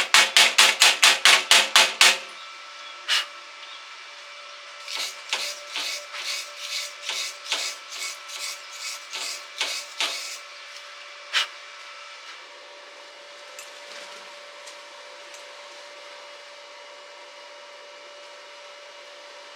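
Rapid, even taps of a hammer on ringing metal, about four a second, stopping about two seconds in; a run of lighter, uneven taps follows, then a faint steady hum.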